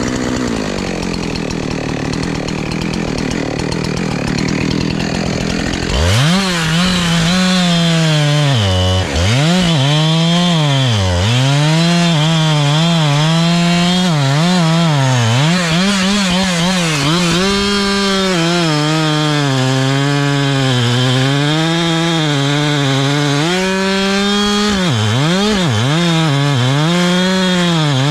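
Two-stroke chainsaw cutting wood. The engine's pitch dips repeatedly as the chain bogs into the cut and then picks back up, and it runs louder and clearer from about six seconds in.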